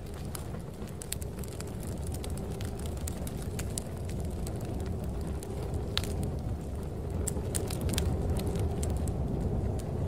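Crackling fire, irregular sharp pops and snaps, over a steady low rumble of snowstorm wind that grows a little louder toward the end.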